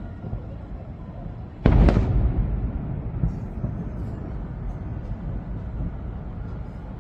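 Aerial firework shells bursting: one sudden loud boom about two seconds in that rolls away over the next few seconds, over a steady low rumble of other bursts.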